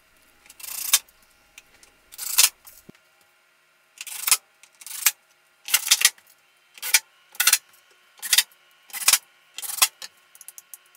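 Cordless drill-driver driving wood screws through the shelf's bottom panel into its wooden frame, in about ten short bursts with pauses between.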